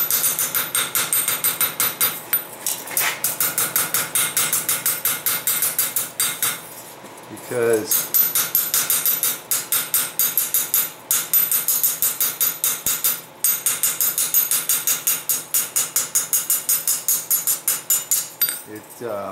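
Small ball peen hammer, reworked into a texturing tool, striking a thin steel tree cutout on an anvil in a fast, even run of light blows, about four a second, with a few short pauses. The blows are punching bark texture into the steel.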